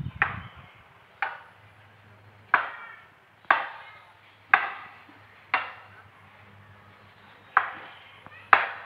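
Eight sharp knocks, roughly one a second with one beat skipped, each ringing briefly, with a faint low steady hum underneath.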